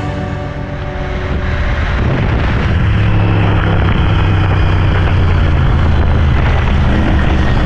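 Motorcycle running at a steady cruise: a constant engine drone under heavy rushing wind noise on the microphone. Background music fades out in the first second or two.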